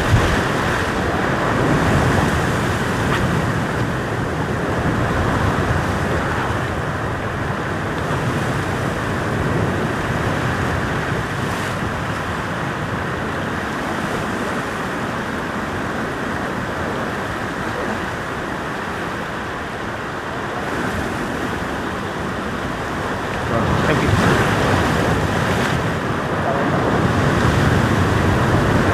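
Heavy ocean swell surging and washing against a rock ledge, a steady wash of surf with wind buffeting the microphone. It grows louder about three-quarters of the way through.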